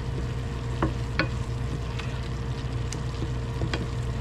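Wooden spatula stirring a soft tomato, onion and garlic sauté in a stainless steel frying pan as it cooks down, with a few sharp scrapes and taps of the spatula against the pan over a steady low sizzle and hum.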